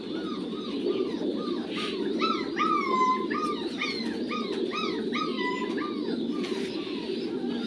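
An animal's short whining calls, each rising and falling, repeated about twice a second and strongest through the middle, over a steady low murmur.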